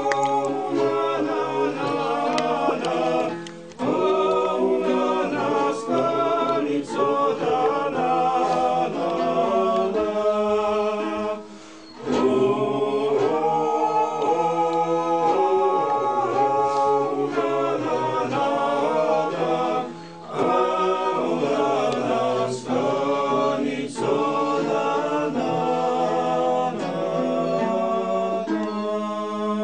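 Background music: an unaccompanied choir singing several parts in harmony over a held low note, pausing briefly between phrases about 4, 11½ and 20 seconds in.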